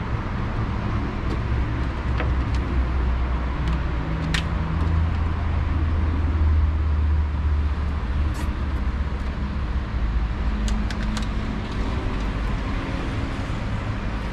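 Low rumble of motor-vehicle engines and road traffic, swelling about five to eight seconds in, with a few light clicks.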